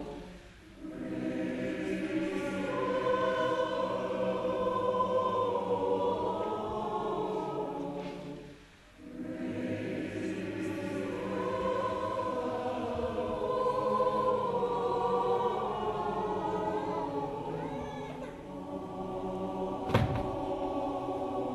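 Mixed choir singing slow, sustained chords, phrase by phrase, breaking off briefly twice, about a second in and again about nine seconds in. A single sharp knock sounds near the end.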